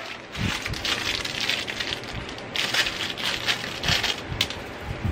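Small clear plastic bag crinkling as hands handle and open it, in irregular crackles.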